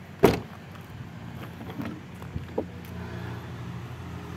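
Rear door of a Daihatsu Charade Classy being unlatched and opened: one sharp clack of the latch just after the start, then a few lighter knocks. A low, steady hum runs underneath.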